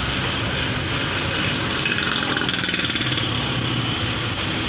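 A small engine running close by, over a steady hiss.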